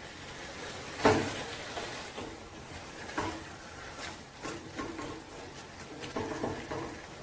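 A spoon stirring and scraping chicken and onion masala in a cooking pan, with a few knocks of the spoon against the pan, the loudest about a second in.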